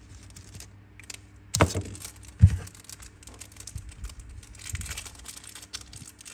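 Handling noise from a metal Zippo lighter: two sharp knocks about one and a half and two and a half seconds in, the second the louder, amid light clicks and rustling.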